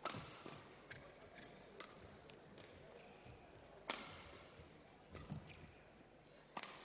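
Badminton rally: rackets striking the shuttlecock in sharp cracks at irregular gaps of about a second or more, the loudest at the start, about four seconds in and near the end, with fainter taps from footwork on the court between.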